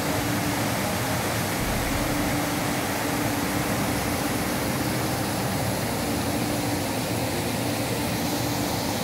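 Water falling down a granite wall fountain: a steady, even rush.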